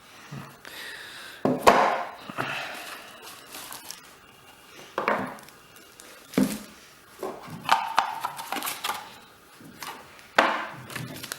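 Product packaging being handled: irregular rustling and scraping of plastic wrap and box, with several sharper handling knocks.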